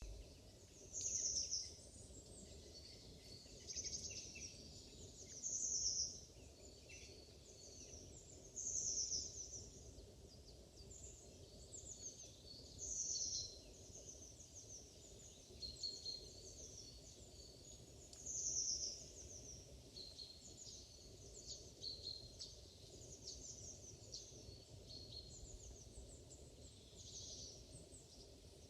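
Several wild birds chirping, with thin high-pitched calls repeating every few seconds, over a steady low background rumble.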